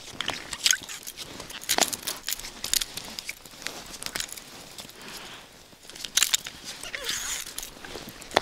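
Irregular crunches, clicks and rustles of hands, line and ice-fishing gear being handled as a just-hooked fish is brought up onto the ice.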